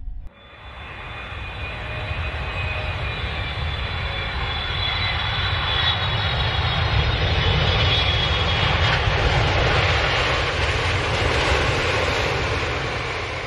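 Rocket engine roar sound effect: a deep rumble under a rushing hiss, starting suddenly and swelling over several seconds, for the rocket's approach and landing on Mars.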